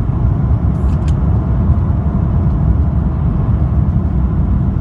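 Steady low rumble of an Airbus A350's Rolls-Royce Trent XWB jet engines at takeoff, with two faint ticks about a second in.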